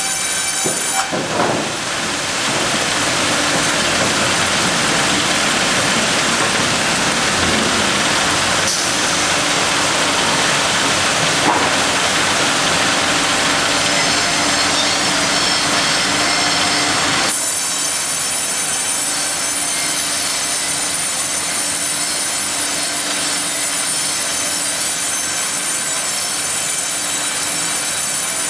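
Ustunkarli UHM 140 H vertical log bandsaw cutting lengthwise through a squared log fed on a hydraulic carriage, a dense noisy cut from about a second in that stops abruptly a little past halfway. After that the saw runs free with a steady whine.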